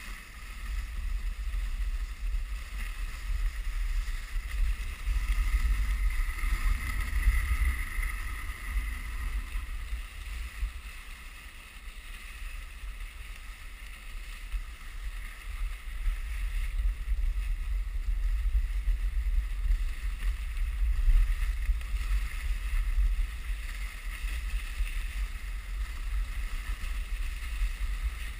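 Dog sled travelling along a packed-snow trail: a continuous rushing, rumbling noise from the runners on the snow and wind buffeting the microphone, swelling and easing in loudness.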